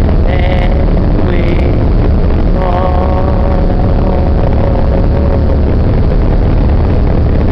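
A boat's engine running with a steady low drone under the rush of its wake, while a voice sings over it: short sung phrases, then one long held note from about two and a half seconds in to about five and a half seconds.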